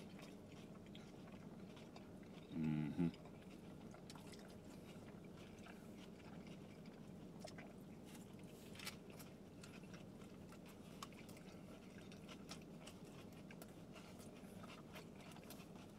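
Quiet chewing and biting of soft tacos, with faint scattered mouth smacks and clicks. About three seconds in there is a short hummed "mm".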